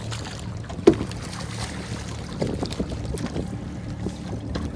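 Steady low rumble of the fishing boat, with one sharp knock about a second in and several small splashes and knocks as a walleye is scooped into a landing net at the water's surface.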